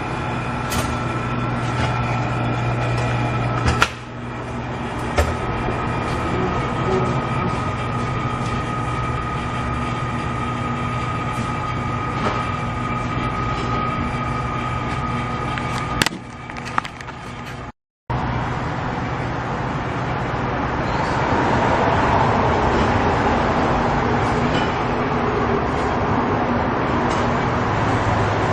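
Vehicle engine running steadily, a constant low hum with a held higher whine, with a sharp knock about four seconds in and a click near sixteen seconds. After a sudden break, a louder, even rushing noise takes over.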